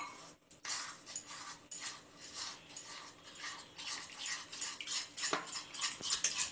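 Fingers working a wet flour-and-water batter in a plastic bowl: a run of short, wet swishing strokes that come faster toward the end, at about three a second. This is the flour slurry being mixed to a smooth batter.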